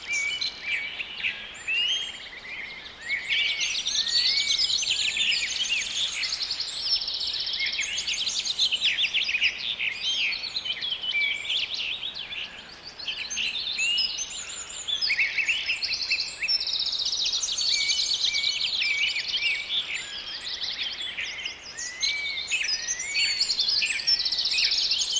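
Forest ambience thick with songbirds: many birds singing and chirping at once, rapid trills and short rising and falling whistles, over a faint steady hiss.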